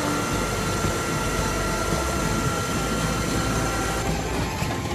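Mi-26 heavy-lift helicopter's twin turboshaft engines and rotor running, heard loud from the open cargo hold: a dense steady noise with a thin high whine that stops about four seconds in.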